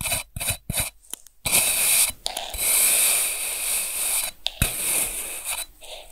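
Kitchen knife cutting through a block of kinetic sand. A quick run of short crunchy slices comes in the first second and a half, then one long continuous scraping cut that lasts about four seconds.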